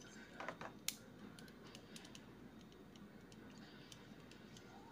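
Light, scattered plastic clicks and ticks from a small transforming robot toy's hinged parts being turned and folded by hand, with a brief cluster and one sharper click just under a second in.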